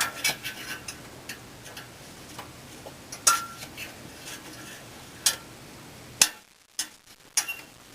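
A few separate sharp clicks and taps, spread out several seconds apart over a faint steady background hum.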